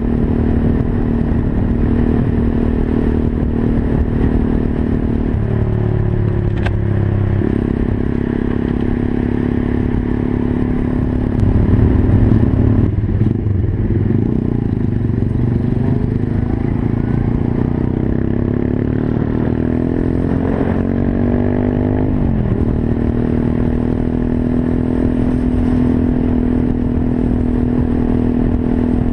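Monkey bike's small single-cylinder engine running while ridden, mostly at steady revs. The pitch shifts a couple of times, and about three-quarters of the way through the revs climb for a few seconds, then drop sharply and settle back to a steady note, as at a gear change.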